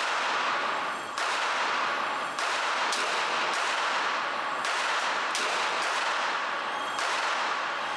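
Handgun shots at a shooting range: about eight sharp reports at uneven intervals, each trailing off in a long echo.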